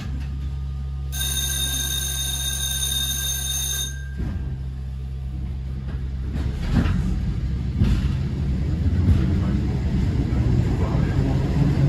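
A tram stands with a steady electrical hum, and a high, steady electric ringing sounds for about three seconds near the start. After a short lull, about halfway through, the tram sets off and its wheels rumble louder on the rails.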